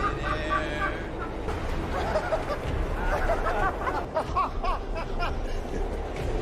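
People's voices with snickering laughter, over a steady low rumble.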